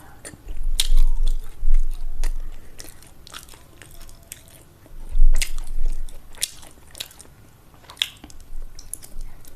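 Close-miked chewing of a mouthful of rice and egg curry, with wet mouth clicks and smacks. It comes in two bouts about five seconds apart.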